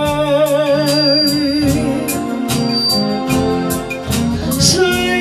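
Instrumental passage of a soul ballad: organ and keyboard chords over a steady drum beat, with a held wavering note in the first couple of seconds.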